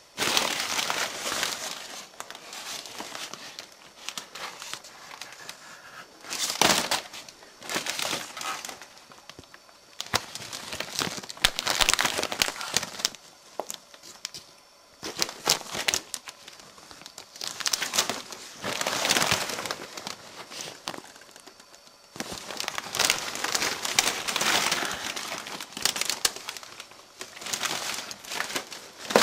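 Thin plastic bag sheeting crinkling and rustling in irregular bursts of a second or two, with quieter gaps between.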